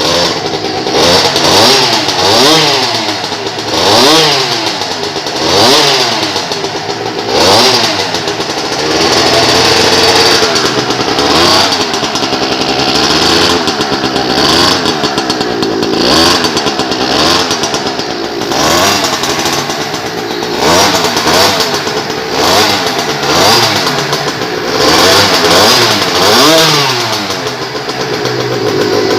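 Small two-stroke engine of a stand-up scooter with an expansion-chamber pipe and silencer, blipped over and over: the pitch climbs and drops back every couple of seconds, with a longer, steadier stretch a little after a third of the way through.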